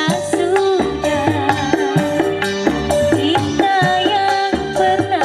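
Music with a steady hand-drum beat about twice a second under a wavering, bending melody, played loud through a passive 15-inch speaker system as a sound demonstration.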